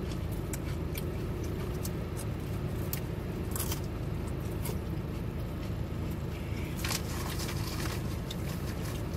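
Car engine idling, heard from inside the cabin as a steady low hum, with scattered small clicks over it.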